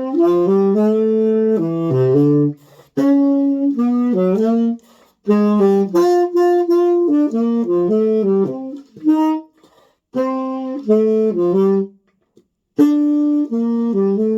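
Yanagisawa tenor saxophone playing a jazz melody in short phrases separated by brief breaths.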